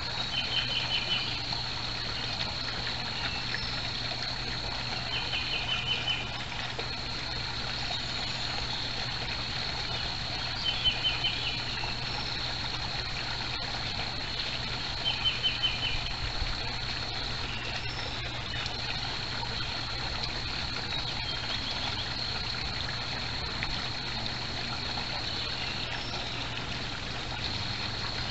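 Backyard koi pond water trickling steadily, with a constant high whine underneath. A small bird's short, rapid call of quick repeated notes comes four times, about five seconds apart, in the first half.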